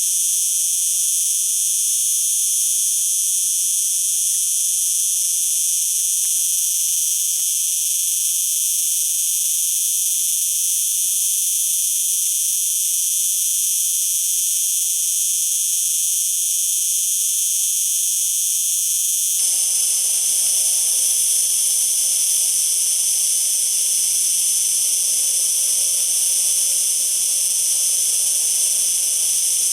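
Cicada singing: a continuous, steady, high-pitched buzz. About two-thirds of the way through it changes abruptly, as a different recording of the song starts with a little lower background noise under it.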